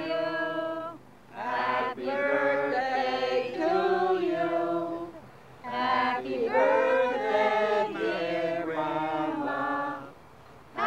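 A group of people singing together in long phrases of held notes, breaking off briefly about a second in, again about halfway through and near the end.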